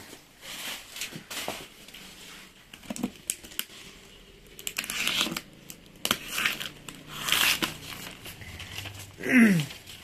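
Cardboard cartons being handled and shifted, with crinkling of plastic wrap and packing tape and rustling paper in uneven bursts. A short falling tone sounds near the end and is the loudest moment.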